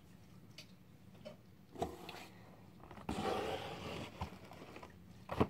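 Small cardboard boxes handled on a tabletop: a few light knocks and a thud, then about a second of rustling and scraping, with more knocks near the end.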